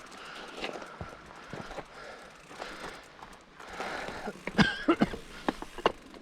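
Mountain bike rolling over rough trail: a steady rushing noise with scattered clicks and knocks of the bike rattling, and a cluster of sharper knocks a little past halfway through.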